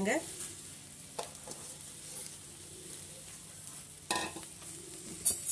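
Banana flower strips sizzling faintly as they dry-roast in a hot aluminium kadai with no oil, their own moisture hissing off. The pan is stirred, with a small click about a second in and two sharper scrapes against the pan about four and five seconds in, the second the loudest.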